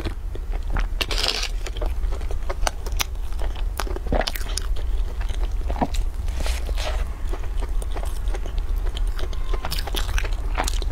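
Close-miked eating sounds: a sip from a glass near the start, then bites into a soft filled bread bun and chewing, with many small wet mouth clicks and smacks. A steady low hum sits underneath.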